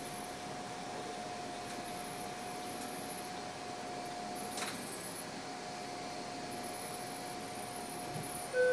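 City bus cabin noise while crawling in traffic: a steady hum with a constant whine, and a single click about halfway. Right at the end a chime begins, the onboard next-stop announcement.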